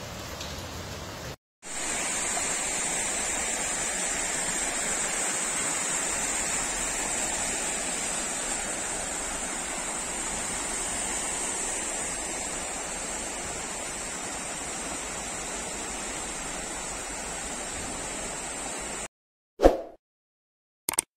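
Steady rush of heavy rain and floodwater running along a flooded street. It cuts off sharply near the end, followed by a brief sound effect and a click.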